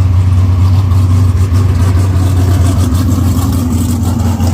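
An engine running steadily nearby, a loud, even low drone.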